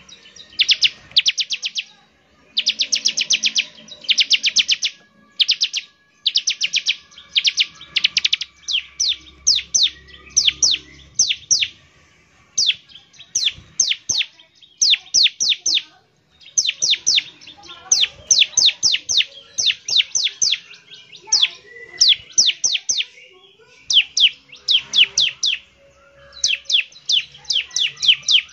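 Bar-winged prinia (ciblek) singing: fast runs of high, sharp, downward-flicking notes in bursts of about a second, with short pauses between. This is the rapid rattling 'ngebren' song used to call other ciblek.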